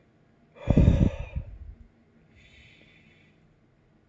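A man's forceful, heavy exhale lasting about a second, then a fainter breath about a second later: he is breathing hard through the burn of a superhot chili pepper.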